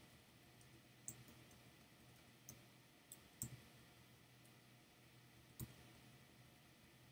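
Near silence broken by a handful of faint, separate clicks from the computer's controls as the photos are stepped through.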